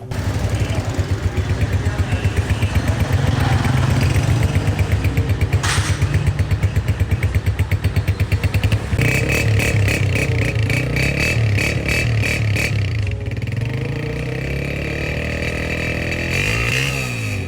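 Honda CG125's single-cylinder four-stroke engine running steadily at idle after a repair, with an even pulsing beat. The note changes about nine seconds in, and the revs rise and fall briefly near the end.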